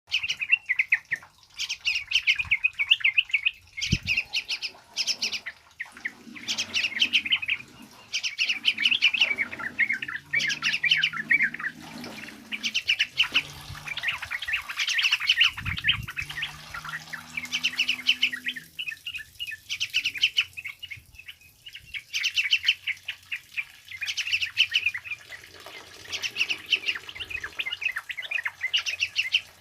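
Yellow-vented bulbul (trucukan) singing a fast, chattering song in repeated bursts of a second or two with short pauses between them.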